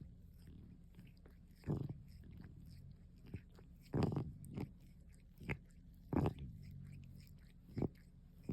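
A cat grooming itself close to the microphone: short, irregular licking and mouth sounds about every second or two, over a steady low noise of its asthmatic breathing.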